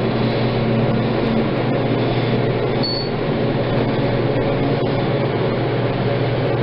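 Kone hydraulic elevator's pump motor running with a steady, even hum as the glass cab rises.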